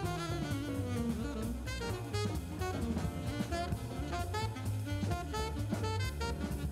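Background jazz music, a horn melody over a drum kit, playing at a steady tempo.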